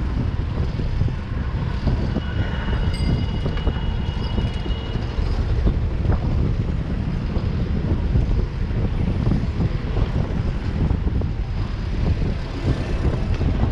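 Ride-along road noise: a steady low rumble of wind on the microphone and passing city traffic, with faint thin high tones a couple of seconds in.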